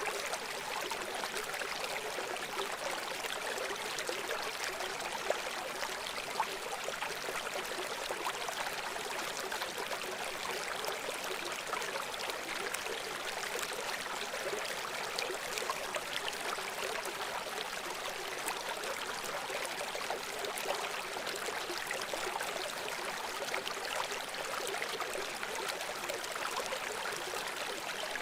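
River water running steadily over stones, a continuous babbling rush with small splashes and gurgles.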